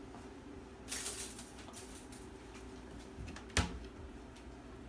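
Quiet kitchen handling sounds: a short rustle about a second in and a single sharp click or knock a little past the middle, as seasoning is added to the avocado and things are set down.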